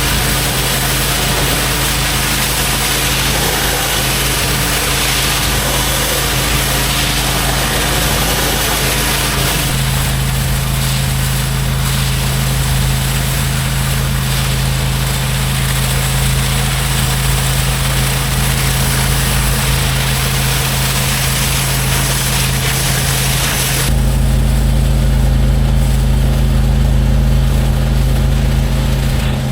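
Gas-engine pressure washer running steadily under the hiss of its water spray. About 24 s in the hiss drops away and a low engine rumble grows louder.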